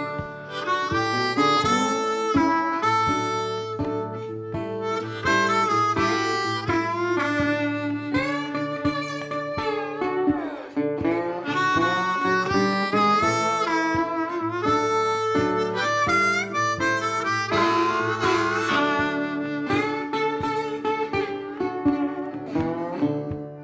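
Background music: a blues-style tune with a harmonica lead over guitar, its lead notes bending, dying away at the very end.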